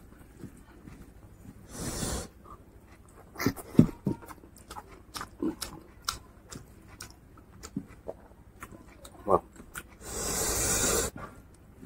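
Close-up eating sounds of someone eating pork curry and rice by hand: wet chewing and lip smacks scattered throughout, with two longer slurping sounds, a short one about two seconds in and a louder one near the end.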